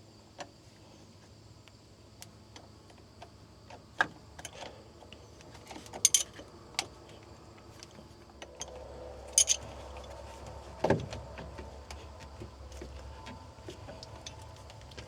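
Scattered metallic clicks and clinks of a wrench on a battery terminal clamp, a handful of sharper knocks among them. A faint low hum comes in about halfway through.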